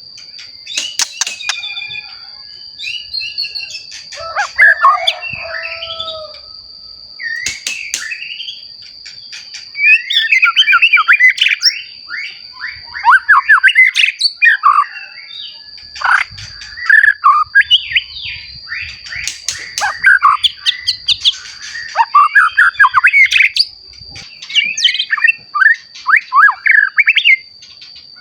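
Young white-rumped shama singing in bursts of rapid, varied whistles, slurs and trills, fullest and loudest from about ten seconds in. A steady high-pitched tone runs underneath the song.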